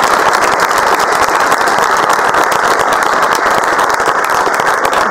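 Audience applauding: many hands clapping steadily and loudly.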